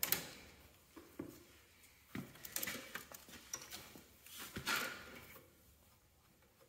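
Scattered light clicks and knocks of metal hydraulic hose fittings against the control valve and the steel tractor frame, with rustling as the rubber hydraulic hoses are handled and routed.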